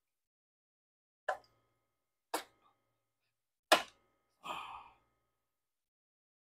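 Four short, sharp clicks and knocks of metal parts being handled about a second apart, the third the loudest, each with a brief faint ring; the last is a longer scraping rattle of about half a second.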